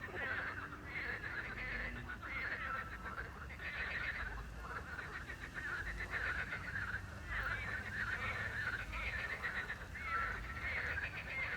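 A chorus of frogs croaking at night, many rattling, pulsed calls overlapping without a break, with short clear notes repeating every few seconds among them.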